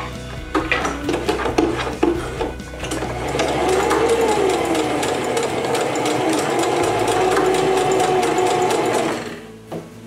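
Singer electric sewing machine sewing a zigzag stitch over elastic. It makes a few slow, uneven stitches at first, then runs steadily at speed for several seconds and stops shortly before the end.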